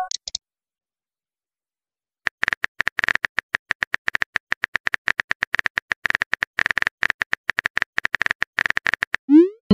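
Rapid, irregular phone-keyboard tapping clicks of a chat app as a message is typed, followed near the end by a short rising swoosh as the message is sent.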